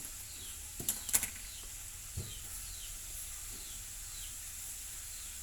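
Whole wheat flour being scooped and tipped into a mixing bowl: a few short scraping rustles about a second in and a soft knock a little after two seconds. Faint short falling chirps repeat every half second or so over a steady hiss.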